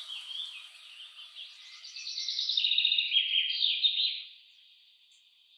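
Songbird singing a fast, high, warbling and trilling song, loudest in the middle, then dropping away to a faint steady high chirring near the end.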